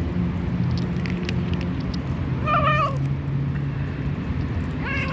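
A hungry cat meowing twice: one meow about halfway through and another starting near the end, over a steady low hum.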